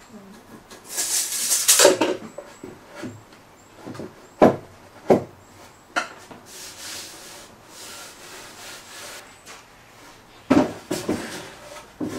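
Scaffold boards being measured, marked and handled on a workbench. A tape measure and pencil scratch and rub over the rough timber, with a loud scratchy rush about a second in and a few sharp knocks in the middle. Near the end the heavy wooden boards knock together as they are lifted and turned over.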